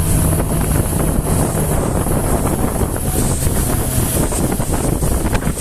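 Wind buffeting the microphone over a motorboat's steadily running engine and the rush of water; the engine's low hum drops back about four seconds in.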